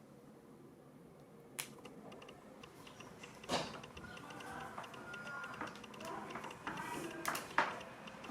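Small mechanical clicks, knocks and creaks, growing busier from about three and a half seconds in, with sharp clicks near the end.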